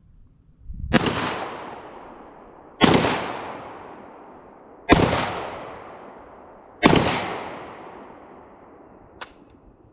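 Black Aces Tactical FD12 bullpup 12-gauge shotgun firing four shots about two seconds apart, each with a long echo trailing off, then a single short click near the end as the gun fails to feed from its drum magazine.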